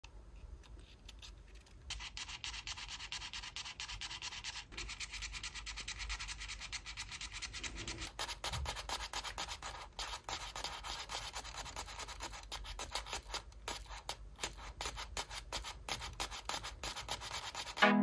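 Small folded-paper origami button toys pressed down over and over by fingertips: a rapid, dense run of light paper clicks and rubbing, picking up about two seconds in.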